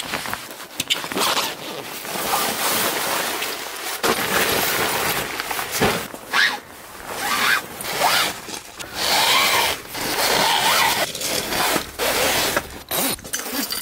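Zippers being pulled and heavy nylon fabric rustling and scraping, in uneven bursts, as a Trap Overland awning side wall is taken out of its storage bag and fitted to the awning.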